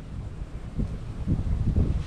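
Wind buffeting the microphone: a low, gusty rumble that grows stronger in the second half.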